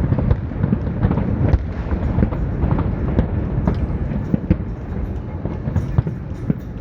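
Fireworks exploding in a dense barrage: a continuous low rumble of overlapping booms, with many sharp bangs and cracks.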